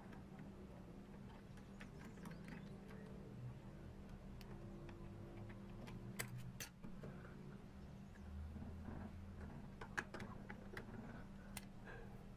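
Faint small metal clicks and taps from parts of an old Hasler Bern railway speedometer's gear mechanism being handled and fitted, with a few sharper clicks scattered through, over a steady low hum.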